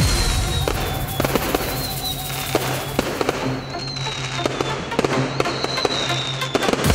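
Consumer fireworks display: a rapid run of aerial shells and comets firing and bursting, with many sharp reports and crackle, over music playing.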